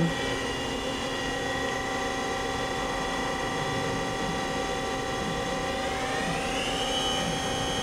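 Spindle of an AWEA BL-2018FM CNC horizontal boring mill (30 hp, CAT-50) running with a steady whine; about six seconds in the pitch rises and then holds as the spindle speeds up to a higher RPM.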